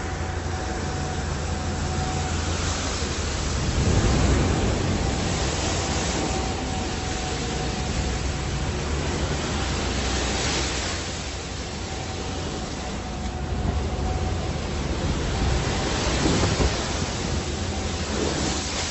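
Seawater surging and sloshing across an enclosed ship's deck over a steady low rumble, with louder surges about four seconds in, around ten seconds and near the end.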